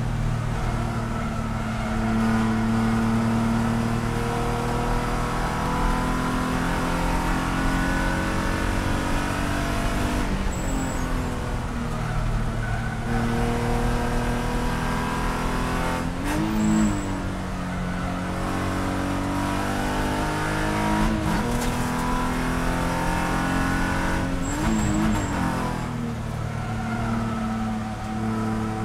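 Spec E46 race car's BMW straight-six running hard at high revs, heard from inside the cabin on track. It goes through several gear changes, and two of them about halfway through and near the end bring quick throttle blips.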